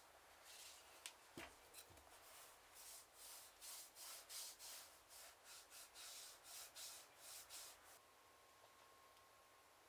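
Bristle brush stroked back and forth over a leather book cover, a faint rhythmic rubbing at about two strokes a second, with a light knock of the book just after a second in; the brushing stops about eight seconds in.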